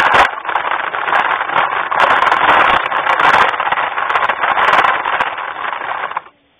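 LGB garden-railway train running along the track, a loud steady rattling whir of its drive and wheels picked up by a camera riding on the train, with scattered clicks. It cuts off suddenly a little after six seconds in as the train stops.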